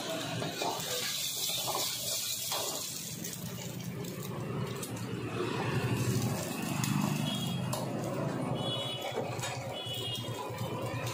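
Eggs sizzling in hot oil in a large steel wok, a steady frying hiss that swells slightly about two-thirds of the way through.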